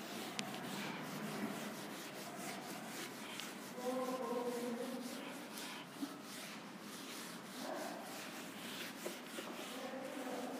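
Whiteboard eraser being rubbed across the board in quick repeated strokes, wiping off the writing, with a brief tone about four seconds in.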